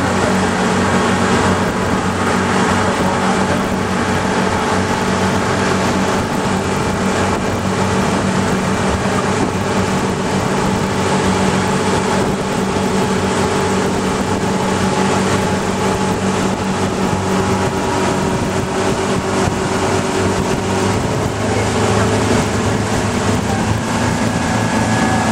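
Tour boat's engine running steadily under way, a constant drone with the rush of water and wind over it; the engine note shifts slightly near the end.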